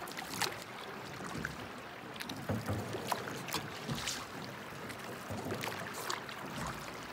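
Rowboat under way on calm water: oars dipping, splashing and dripping, with occasional short knocks at irregular intervals.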